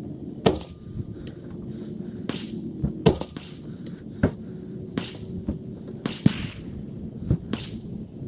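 Rifle shots from a 5.56 AR-type rifle with a 12.5-inch chrome-lined barrel, fired slowly as a group from a bench and sped up to triple speed: three loud sharp cracks about three seconds apart, with fainter cracks between them.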